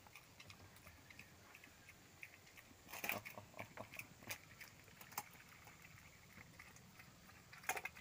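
A pig eating dry pellet feed from a steel bowl: faint, irregular crunching and clicking, with a couple of louder clicks about three seconds in and near the end.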